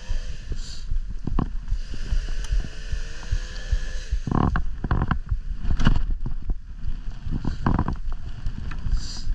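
Wind rumbling on the microphone, with scattered knocks and a few heavier clunks.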